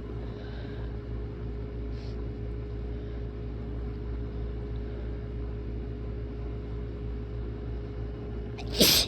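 Steady low background hum; near the end a person lets out a harsh sneeze, a quick intake of breath and then a loud burst that trails off in a falling tone.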